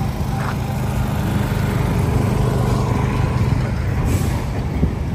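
City street traffic, led by the steady low hum of an idling heavy engine, with a brief hiss about four seconds in.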